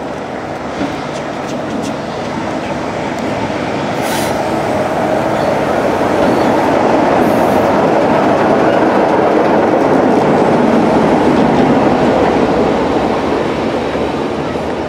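Class 33 diesel locomotive hauling a passenger train past at close range. The engine sound and the rumble of wheels on rail swell to a peak about halfway through, then ease slightly as the coaches roll by.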